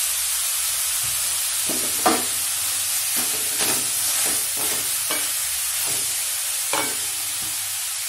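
Grated pumpkin sizzling steadily in an aluminium pan as it cooks down in its own juice. A wooden spatula stirs it, scraping and knocking against the pan several times.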